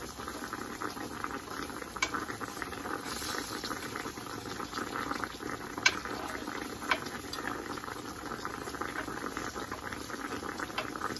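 Floured deer backstrap pieces frying in hot grease in a cast-iron skillet, a steady crackling sizzle. A few sharp clicks come from the metal tongs against the pan as the pieces are turned, the loudest about six seconds in.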